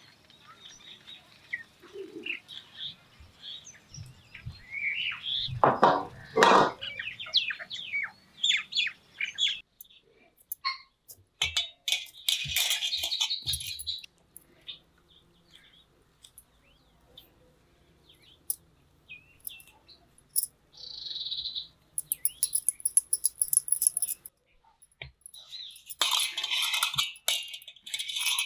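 Small birds chirping over and over, with two louder short sounds about six seconds in. Later come scattered clicks and patches of hiss.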